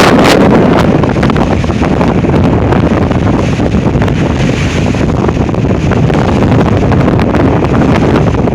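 Strong sustained wind of 40 to 45 mph, gusting past 60, buffeting the microphone in a loud, continuous rumbling roar.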